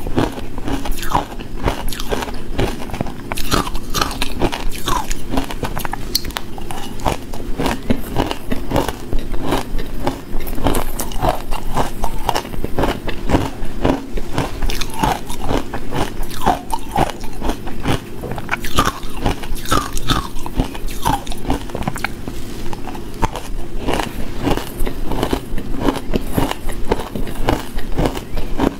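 Crushed matcha ice being bitten and chewed, a dense run of hard, rapid crunches one after another.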